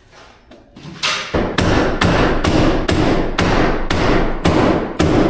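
Repeated hammer blows, about two a second, starting about a second in, driving a bale-feeder part over to line up a bolt hole.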